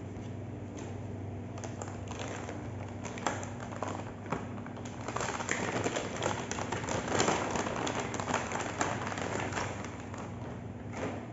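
Hands-on handling noise: scattered taps, clicks and rustling of parts and cables being worked on, busiest in the middle, over a steady low hum.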